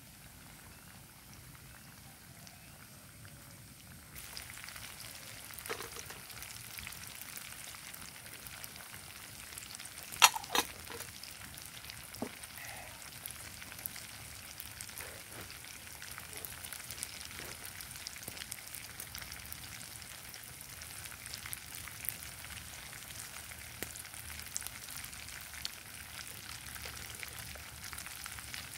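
Tofu-egg fritters deep-frying in hot oil: a steady sizzle with dense crackling that gets louder about four seconds in. Two sharp knocks sound just after ten seconds.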